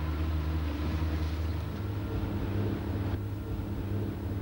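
Small boat's outboard motor running at low speed, a steady low engine hum whose note steps up slightly about a second and a half in. Light wind on the microphone.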